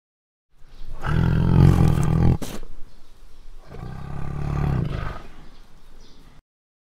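Tiger roaring twice. The first roar breaks off abruptly about two and a half seconds in, and the second one fades away.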